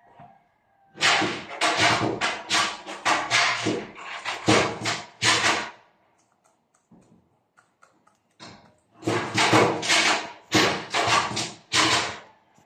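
Roundhead gamefowl pecking grain off a cloth-covered table, its beak knocking the tabletop in quick runs of sharp taps, about three a second, in two bouts of four to five seconds each.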